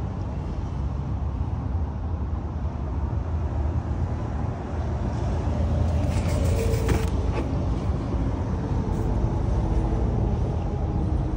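Retractable cargo cover in a BMW X3's boot being pulled out, with a short cluster of clicks about six to seven seconds in as it is hooked in place, over a steady low rumble.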